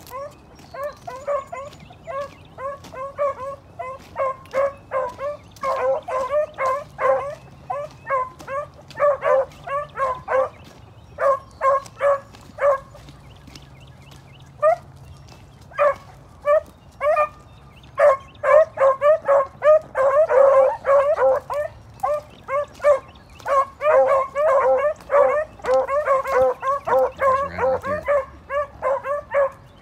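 Beagles baying in short, rapid chop barks while running a rabbit's scent trail, with a brief lull about halfway through.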